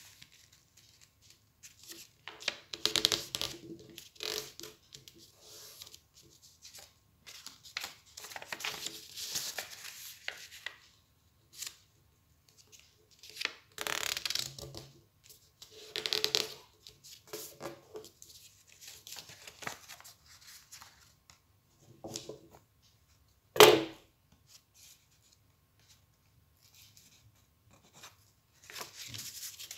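Paper being folded and creased by hand: short bursts of rustling and scraping as the folds are pressed flat, with quiet pauses between them. A little past the middle comes one sharp tap, the loudest sound.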